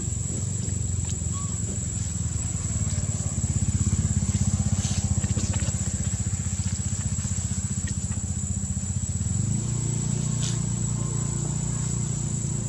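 A low, rapidly pulsing rumble under a steady high-pitched insect drone, with a few faint clicks.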